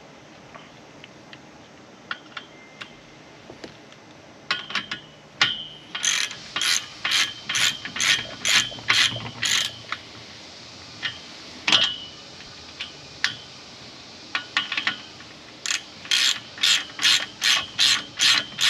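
Hand ratchet wrench tightening bolts on a steel frame: a few scattered clicks, then runs of even ratcheting strokes, about one and a half a second, from about six seconds in and again from about fifteen seconds, with a single sharp knock near twelve seconds.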